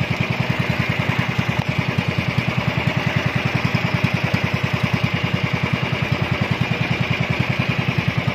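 The small engine of an outrigger fishing boat running steadily under way, with a fast, even exhaust beat.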